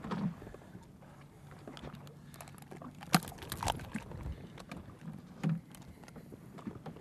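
A few sharp knocks and clicks as a hooked lingcod is handled and unhooked at the side of a dory, the swimbait jig and fish knocking against hands, line and boat, over a faint low hum.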